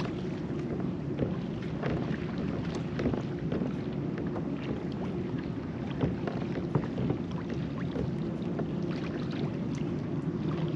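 Shallow water lapping and splashing, with wind rumbling on the microphone and scattered light ticks and splashes throughout.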